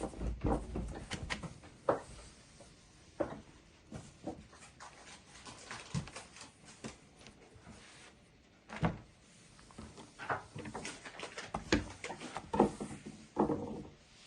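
Irregular knocks, clicks and soft clatter of hands working with kitchen things, a few of them louder, especially near the end.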